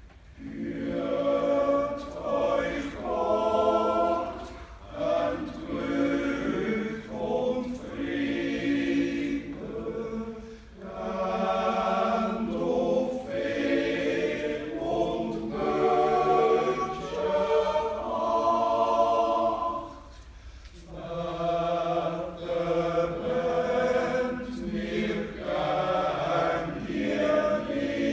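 Swiss men's yodel choir singing a cappella in several voice parts. The phrases are separated by brief breaths about ten and twenty seconds in.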